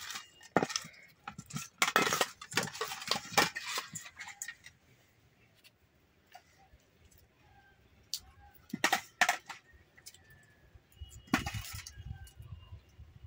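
Kitchen utensils and dishes clinking and clattering in a few short spells, with quiet gaps between.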